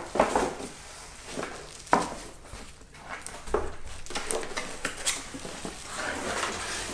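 Cardboard shipping box being opened and handled, with plastic-wrapped framed prints slid out: rustling cardboard and crinkling plastic, with a sharp knock near the start and another about two seconds in.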